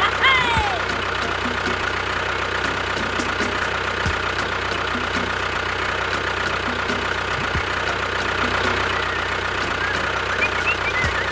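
Small motor running steadily with a faint, even rhythmic pulse. A few short, high chirps sound near the end.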